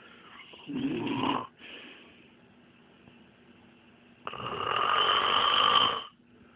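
A sleeping man snoring: a short snore about a second in, then a longer, louder snore starting about four seconds in.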